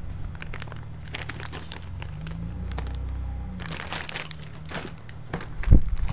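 Plastic parts bags being handled, crinkling and crackling with many small clicks, and a couple of louder knocks near the end over a steady low hum.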